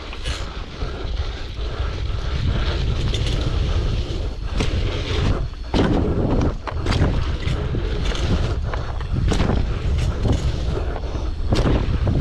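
Wind buffeting the microphone in a heavy low rumble, broken by frequent irregular clicks and knocks and a few short hissing surges.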